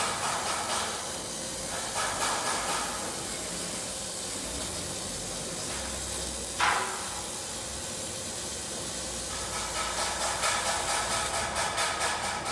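CO2/MAG welding arc of an automatic fire-door edge welder, a steady crackling hiss. A single sharp knock comes about six and a half seconds in.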